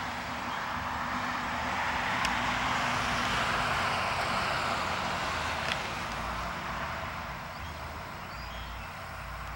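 A car driving past on a nearby road, its tyre and engine noise swelling to a peak a couple of seconds in and then slowly fading away.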